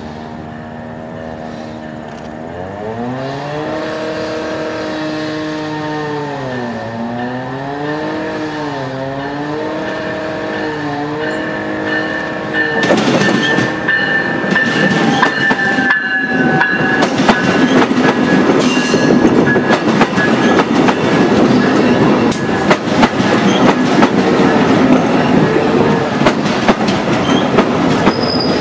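VIA Rail Siemens Venture passenger train approaching, its engine drone growing louder and wavering up and down in pitch, then passing close by from about 13 seconds in with a loud rumble and rapid clicking of wheels over rail joints. A faint high tone from the train drops in pitch as it goes by, and a thin squeal of braking wheels starts near the end as the train slows to stop at the station.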